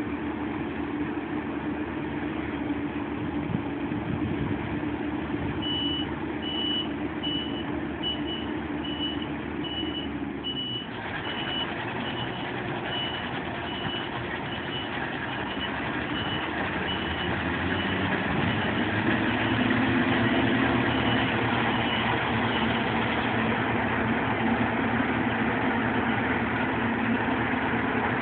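Claas Lexion 520R combine harvester running steadily as it moves off, its reversing alarm sounding a high, even beep about one and a half times a second. The beeping starts about six seconds in and stops a few seconds before the end, and the engine grows louder about two-thirds of the way through.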